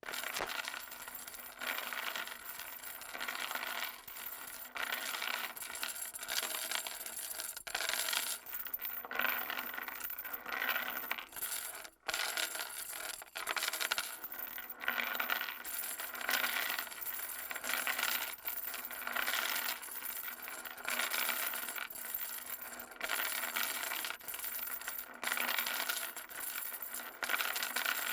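Metal chain dragged across concrete, a continuous clinking, scraping rattle that comes in surges every second or two as it is pulled.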